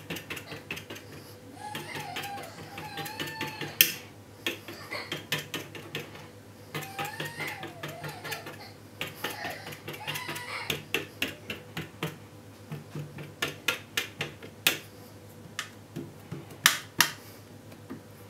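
Fork tines pricking rolled-out dough and tapping through it onto a metal baking tray: runs of quick, sharp clicks, several a second, with a few louder ones.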